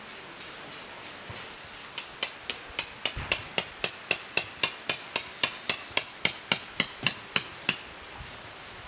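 Hammer driving a metal tent peg: a quick even run of ringing metallic strikes, about three or four a second. The blows grow louder about three seconds in and stop shortly before the end.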